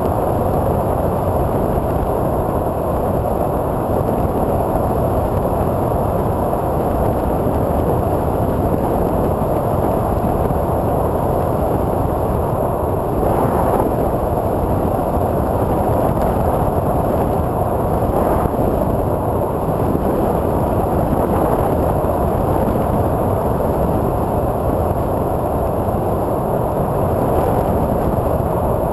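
Steady rush of wind and propeller noise on board a Multiplex TwinStar II electric RC plane in flight, its twin motors turning 8x6 propellers.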